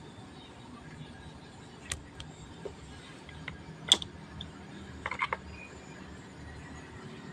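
A few sharp, light clicks and taps from handling, the loudest about four seconds in and a quick run of clicks around five seconds, over a faint steady hum.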